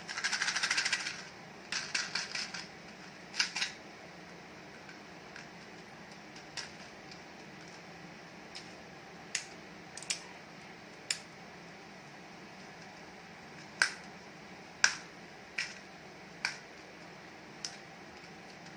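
A small plastic mint box being handled: the mints rattle inside it for about a second at the start, then come a series of sharp, irregularly spaced plastic clicks and taps as the lid is worked open and shut.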